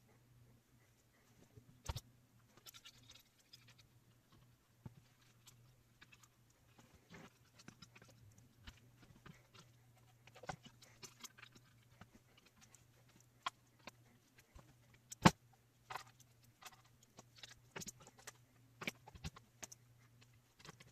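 Scattered clicks, taps and knocks of hands working on a desktop computer case, with a sharp click about 15 seconds in, over a steady low hum.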